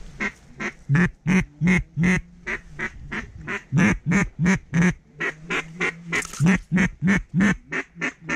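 A duck call blown in a long, steady run of loud mallard-hen quacks, about three a second, to call in ducks flying over the decoys.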